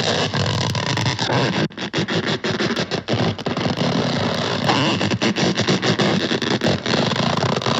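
Cartoon snoring sound effect for a sleeping elephant: a loud, continuous rasping rattle full of irregular crackles.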